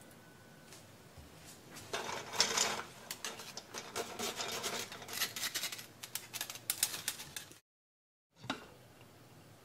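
Quick, repeated scratching and scraping as miso is worked through a fine mesh miso strainer dipped in a pot of broth. It begins about two seconds in and cuts off suddenly near the end.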